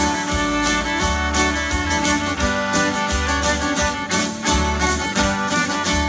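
Fiddle playing a lively instrumental break over strummed acoustic guitar, with a steady beat.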